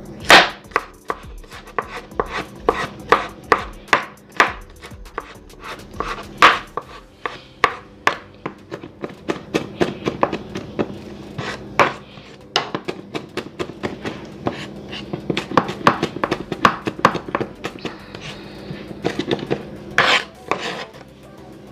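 Chef's knife chopping a garlic clove on a plastic cutting board: a long run of sharp, irregular knocks on the board, coming faster in the middle as the garlic is minced.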